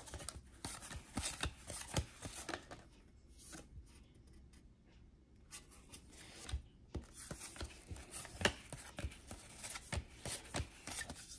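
1991-92 Fleer basketball trading cards being handled and sorted: a run of short clicks and rubs of card stock, quieter for a couple of seconds in the middle.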